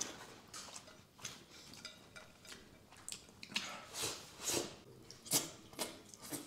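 Faint, wet mouth sounds of someone eating with his fingers: chewing and lip smacks in short irregular bursts, and licking food off a plate, with a few louder smacks about four to five and a half seconds in.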